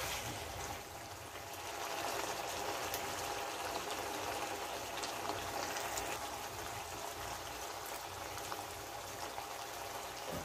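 Pork humba's thick soy-and-pineapple braising sauce bubbling in a pot on the stove, a steady bubbling and crackling hiss.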